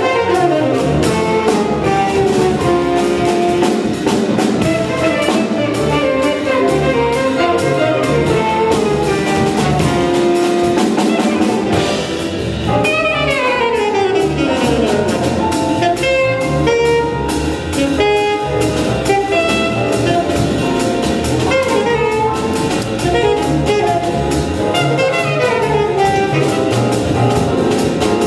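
Live jazz quintet playing: alto and tenor saxophones over grand piano, upright bass and drum kit. About halfway through there is a fast falling run.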